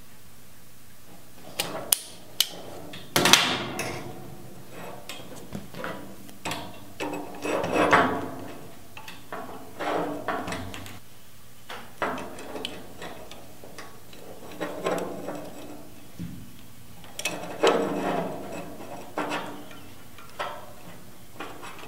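Irregular clicks, taps and scrapes of small metal and plastic parts being handled as an electric fuel pump and its wiring are fitted onto a fuel-tank sending unit.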